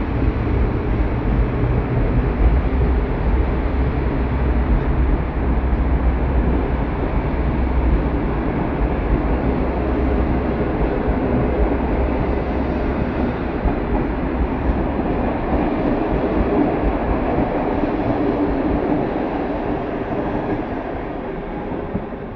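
Train of PKP Intercity passenger coaches rolling past, a steady rumble of wheels on the rails as the train departs. It fades near the end as the last coach moves away.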